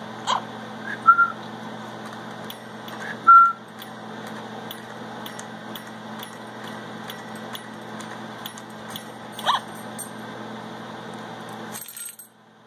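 Pet parrot giving a few short calls: a quick rising chirp near the start, two short single-pitch whistles about one and three seconds in, and another chirp near the ten-second mark. A steady background hum runs under them and stops shortly before the end.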